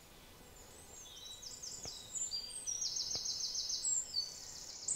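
Birds chirping: runs of quick, high, down-slurred notes, repeated several times a second, faint at first and stronger after about a second. Two faint soft clicks are heard in between.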